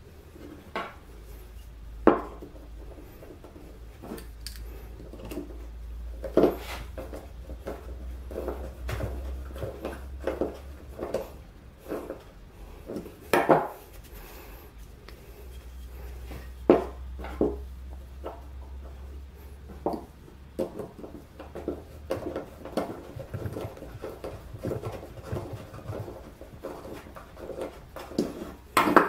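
Hand handling and assembly sounds: plywood parts knocked and set down on a wooden workbench and small metal bolts clinking, heard as irregular sharp knocks and clicks, a few of them loud.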